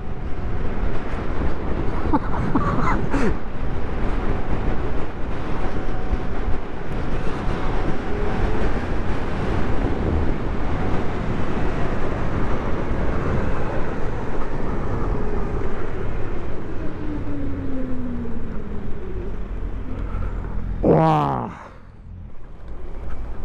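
Wind rush on the microphone and tyre hiss on a wet road from a Zero FX electric motorcycle riding at speed, with a faint motor whine. Near the end, a whine falls steeply in pitch and the rush drops away as the bike slows.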